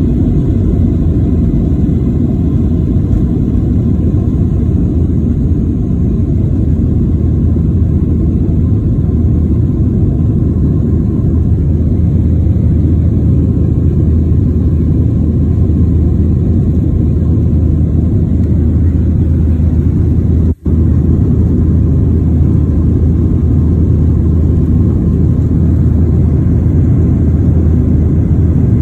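Boeing 737 airliner's jet engines at takeoff thrust, heard from inside the cabin as a loud, steady low rumble during the climb-out. The sound cuts out for an instant about twenty seconds in.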